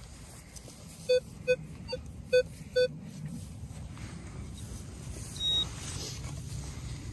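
Metal detector giving five short, low beeps over about two seconds, then one higher beep later on. The beeps are its response to a metal target still in the freshly dug hole.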